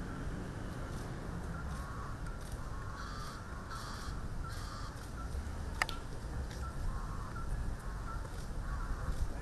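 Crows cawing repeatedly in short calls over a low rumble, with one sharp click a little past the middle.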